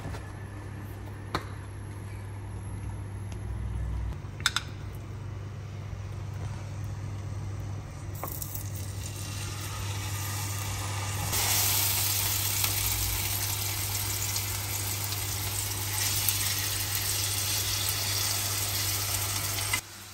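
Beef steak frying in hot oil in a nonstick pan. The sizzle starts about eight seconds in and grows much louder a few seconds later, over a steady low hum, with a couple of light clicks early on.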